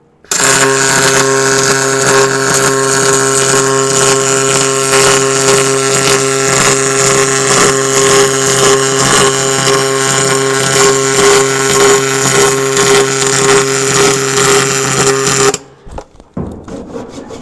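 MIG welding arc on an aluminum boat hull's outside-edge chine seam: a loud, steady buzzing hiss with a hum underneath, running for about fifteen seconds and cutting off suddenly near the end. Its tone marks a dirtier, sootier weld, because on an outside edge the argon shielding gas drifts away and does not fully cover the weld.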